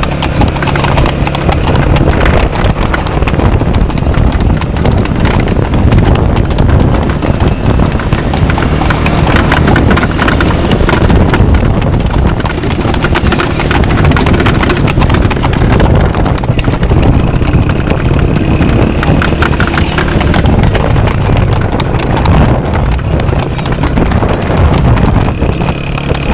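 Horse's hooves clip-clopping at a trot on a paved road as it pulls a two-wheeled cart, a fast, continuous run of hoof strikes.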